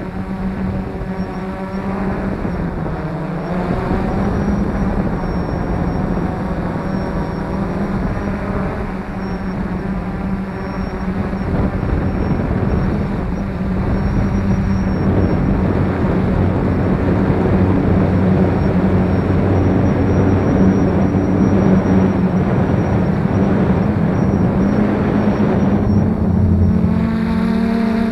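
F450 quadcopter's brushless motors and propellers droning steadily in flight, with a strong hum that shifts slightly in pitch as the throttle changes and grows a little louder about halfway through.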